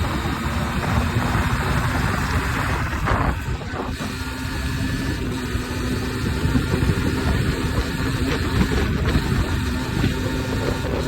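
Beta RR 50 enduro motorcycle's 50cc two-stroke engine running at a steady pitch.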